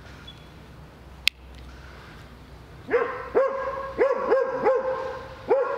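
Search-and-rescue dog barking repeatedly, about six sharp barks starting about three seconds in: his trained alert that he has found the hidden person. A single sharp click comes about a second in.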